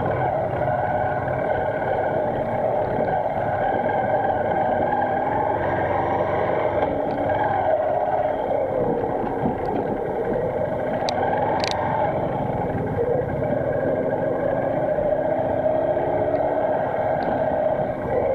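Small motorcycle engine running as it rides along, heard from the rider's seat, its pitch dipping and then rising again with changes in speed. There are one or two sharp clicks about two-thirds of the way through.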